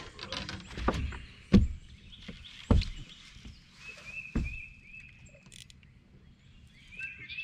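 Hollow thumps and knocks on a bass boat's deck, three heavy ones about a second or more apart, while an angler fights a hooked bass. A bird chirps a quick run of short notes near the middle and again near the end.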